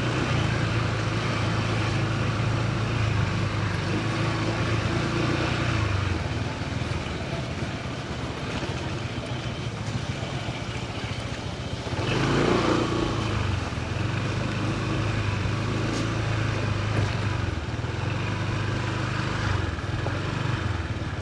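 A motor vehicle's engine running steadily with road noise while travelling, briefly swelling about twelve seconds in.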